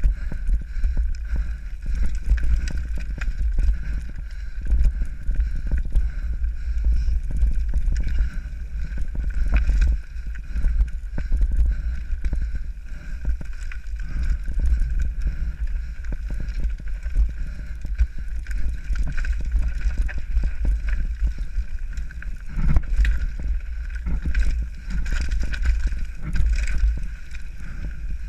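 Mountain bike rattling and clattering over a rocky trail at speed, with heavy wind rumble on the action camera's microphone.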